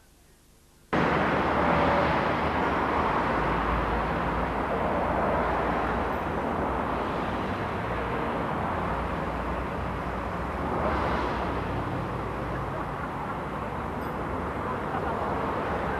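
Steady rumbling noise of vehicles, starting suddenly about a second in after a brief near-silent gap, swelling slightly near two-thirds of the way through.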